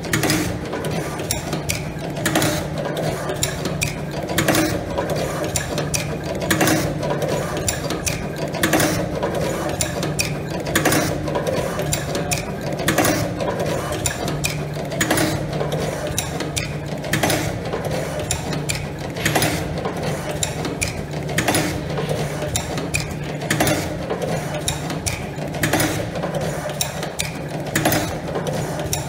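Automatic wire cutting, stripping and tin-soldering machine running through its cycle: a steady low hum with a sharp clack about every two seconds and lighter clicks in between.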